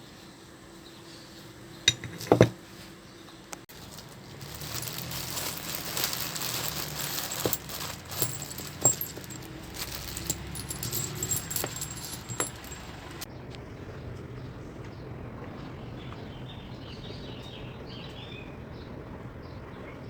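Small metal objects clinking and knocking: two sharp knocks near the start, then several seconds of busy handling noise with scattered clinks that stops abruptly, leaving a steady low background.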